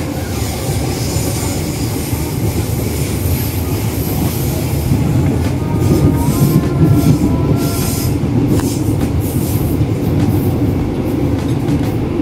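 Electric commuter train running along the track, heard from inside the car: a steady rumble of wheels and running gear, with a faint high whine that rises slightly around the middle.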